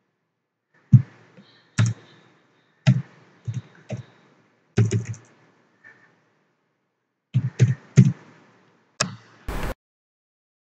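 Computer keyboard keys tapped one at a time, about a dozen irregular clicks with a dull low knock under each, as a page number is typed in. A short burst of noise comes near the end.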